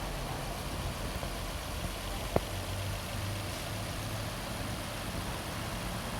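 Nissan Maxima's 3.5-litre V6 idling steadily on new spark plugs and ignition coils, running smoothly with no misfire shake. A single sharp click comes about two and a half seconds in.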